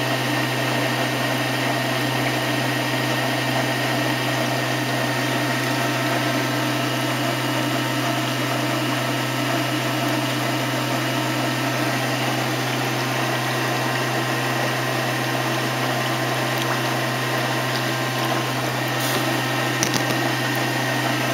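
Waste motor oil in a steel drum at a hard boil as its water cooks off: a loud, steady seething noise over a constant low hum.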